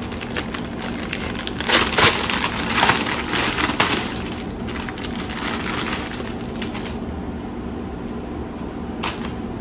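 Packaging around a kit's embroidery floss skeins crinkling and rustling as it is handled and opened. The crinkling is loudest a couple of seconds in, dies away about seven seconds in, and comes back once briefly near the end.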